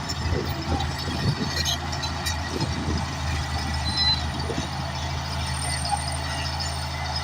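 Large bulldozer's diesel engine running steadily, with irregular clanking and scraping throughout.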